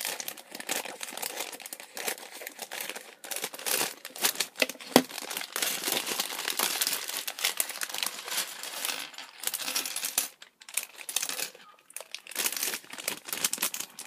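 Plastic LEGO polybag crinkling as it is opened and handled, with small plastic LEGO bricks clicking and clattering out onto a wooden table.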